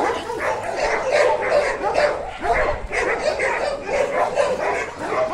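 Dogs barking and yipping without a break, many short calls a second.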